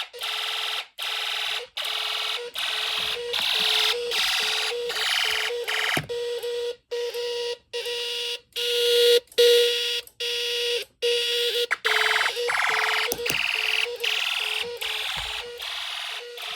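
Homemade Snap Circuits fire alarm sounding in a drill: a buzzy electronic tone from its oscillator circuits, pulsing on and off a little more than once a second, loud.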